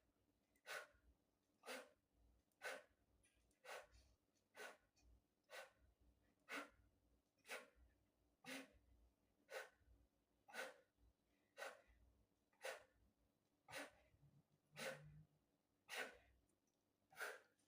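A man's short, sharp breaths during push-ups, one faint exhale about every second in time with each rep.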